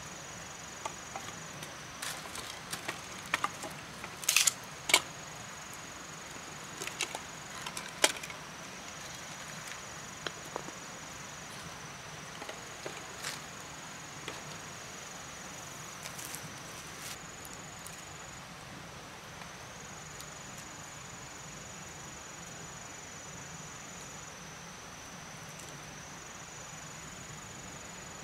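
Split firewood sticks knocking and clacking against each other as they are stood up and stacked by hand, in a cluster of sharp clicks during the first ten seconds or so, then only occasional taps. Insects keep up a steady high drone throughout.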